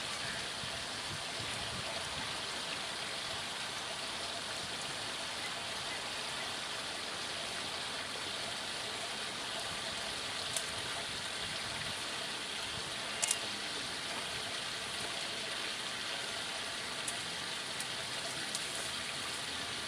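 Steady rushing noise like running water, with a handful of isolated sharp clicks.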